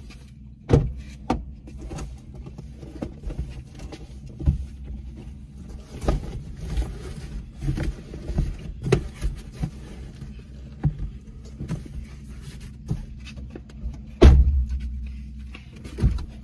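Car engine idling, heard from inside the cabin as a steady low hum. Scattered knocks and rustles come as a cardboard box is pushed onto the back seat, and near the end a loud thump as the rear door is shut.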